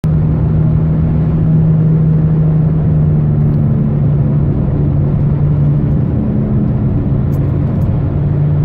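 Chevrolet Aveo (2005) heard from inside the cabin while driving at speed: road and engine noise with a steady, loud low hum.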